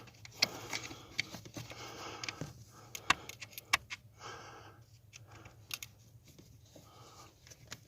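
Hand tools and small parts being handled in a repair: a run of small sharp clicks, taps and metallic rattles, with a few louder clicks, the loudest about three seconds in, and some rustling between them.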